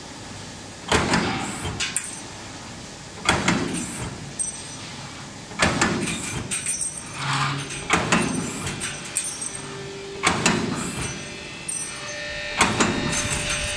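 Automatic pipe hole punching machine punching slots in a rectangular metal tube: a sharp clank about every two and a half seconds, six strokes in all, each followed by a short rattle of the tube and machinery.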